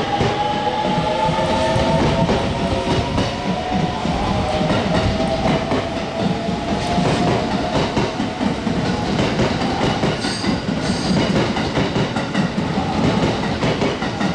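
JR West 681 series limited express electric train pulling out and accelerating away. Several whining tones from its drive slowly rise in pitch over the first several seconds, and the steady noise of the wheels on the rails runs under them as the cars roll past.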